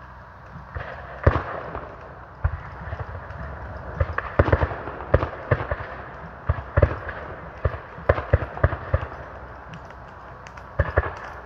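Scattered black-powder small-arms fire from a Civil War reenactment battle: dozens of sharp gunshots at irregular intervals, starting about a second in and thickest in the middle, with a few more near the end.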